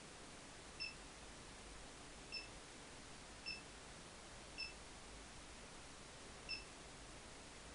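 Android car stereo head unit for the Audi A4 giving five short touch-confirmation beeps, one for each tap on its touchscreen, unevenly spaced over a faint steady hiss.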